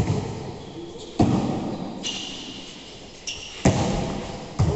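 Volleyball being struck by hands during a rally: four sharp smacks, echoing under a large metal roof.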